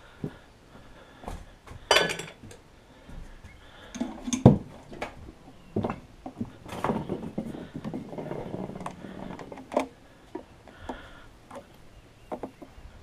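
Handling noise from working on a fishing cart: irregular knocks, clatter and scraping as its aluminium frame and balloon-tyred wheels are moved about. The loudest knocks come about two and four and a half seconds in, followed by several seconds of rough scraping.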